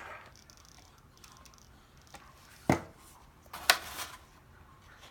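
Handling noise from paper petals being fitted and glued onto a paper flower: faint rustling with two sharp clicks about a second apart, a little before and after the middle.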